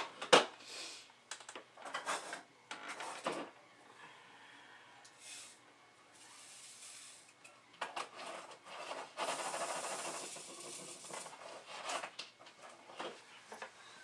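A sharp click right at the start, then short bursts of plastic rustling and rasping as resin diamond-painting drills are handled: a drill bag opened, drills poured into a tray and shaken. The longest stretch of shaking is about two-thirds of the way in.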